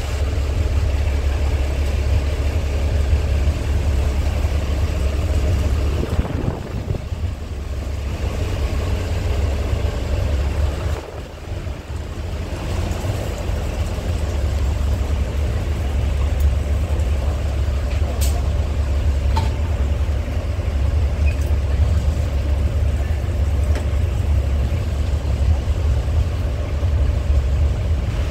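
Diesel railcar's engine idling while the car stands at the platform, a steady low drone heard from inside the passenger cabin. It dips briefly twice, around six and eleven seconds in.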